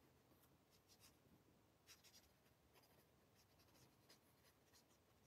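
Very faint scratching of an alcohol-based blending marker's felt tip stroked over cardstock in short strokes, a few light scrapes here and there against near silence.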